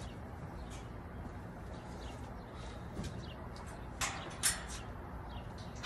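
Hitch-mounted steel cargo carrier being lifted and folded up: a few light knocks and clanks, the loudest two close together about four seconds in.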